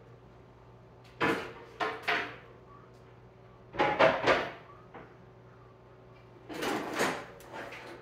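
Handling noises from plastic tubing and wire being moved and rubbed, in four short rustling bursts.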